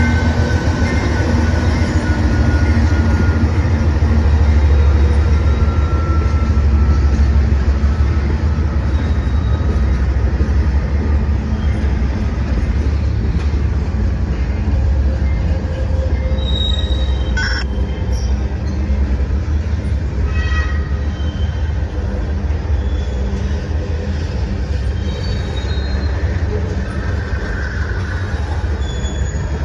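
Freight train rolling past close by. A deep rumble from the CSX CM44AC diesel locomotive is heaviest early on and slowly eases as it moves off, while the freight cars roll by with squealing wheels and a sharp metallic clank about halfway through.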